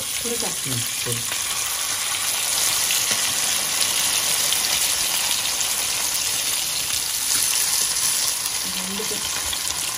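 Whole golden pomfret shallow-frying in hot coconut oil on a flat tawa, a steady, even sizzle.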